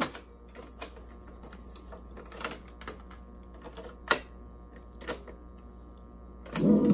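Lasonic TRC-920 boombox's cassette deck being operated by hand: a run of sharp mechanical clicks and clunks from its piano-key transport buttons and controls, about eight in all, irregularly spaced. Taped music cuts off at the start and comes back near the end.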